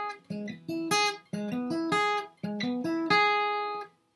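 Flatpicked acoustic guitar playing a short bluegrass lick that outlines a D chord, picked note by note with downstrokes. The phrase is played three times over, each pass stopped short before the next.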